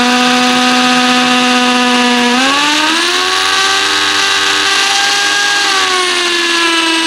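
Bosch GSB 10 RE 500 W corded drill running steadily as it drills into a brick, its motor whine stepping up in pitch about two and a half seconds in. The pitch eases slightly near the end, and the drill stops as the trigger is let go.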